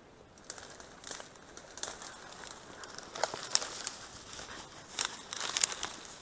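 Dry reed stems rustling and crackling as a dog and a person push through a reed bed, with scattered snaps of breaking stalks, busiest about three seconds in and again about five seconds in.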